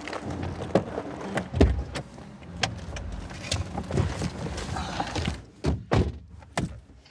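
People getting into a car and shutting its doors: a series of dull thumps with movement in the seats, the loudest about a second and a half in and a few more near the end.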